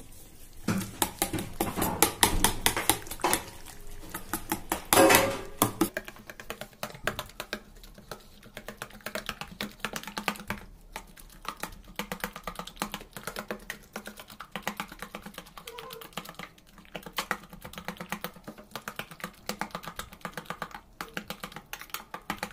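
Metal spoon beating an egg and chopped-vegetable mixture in a stainless steel bowl: rapid clicks and clinks of the spoon against the bowl, louder for the first six seconds and lighter after.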